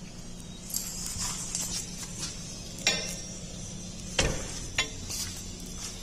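A few sharp knocks and clicks, the loudest about three and four seconds in, over a steady low hum.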